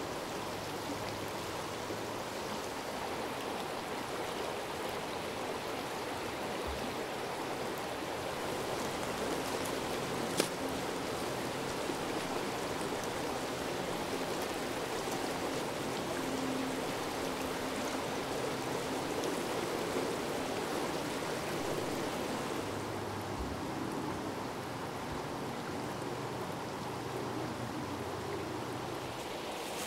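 Shallow creek water running steadily over stones, heard close to the water. A single sharp click sounds about ten seconds in, and the higher part of the rush thins a little past two-thirds of the way through.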